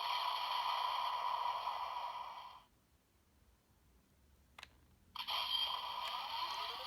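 Electronic sound effects from a Zenkaiger role-play toy reading a sentai gear. A sustained tone cuts off about two and a half seconds in, and there is a single click a little later. The effects then start again, with rising sweeping tones near the end.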